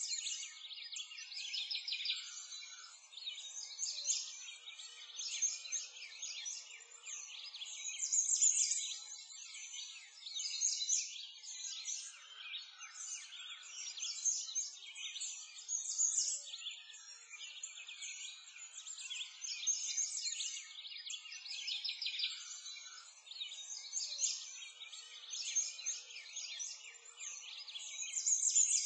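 Many songbirds chirping and singing at once, a dense chorus of quick high chirps and trills with no pauses.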